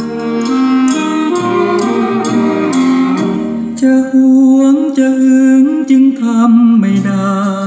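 A song with a singer's voice over guitar and a steady beat, playing through the speakers of a Thomas Old Days Classics retro wooden music centre.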